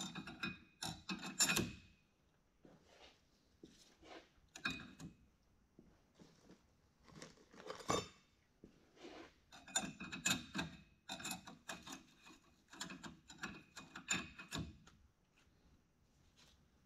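Steel clutch plates and friction discs clinking and scraping as they are handled and stacked onto the hub of a Carraro transmission clutch pack. Light, irregular metallic clinks, some with a brief ring, come thickest in the later part.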